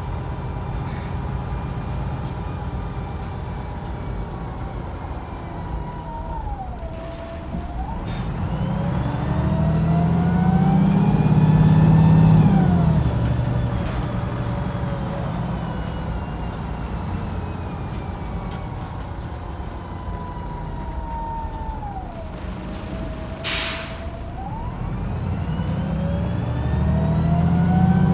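Wright Pulsar 2 single-deck bus heard from on board: the engine and driveline whine climb in pitch as it pulls away and accelerates, drop back, then fall as it slows. About three quarters of the way through there is a short sharp hiss of released air, and then the engine revs climb again as it pulls off.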